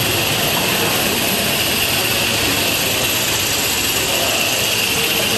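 Live-steam model locomotive running with a steady, unbroken hiss of steam as it hauls its coaches along the track.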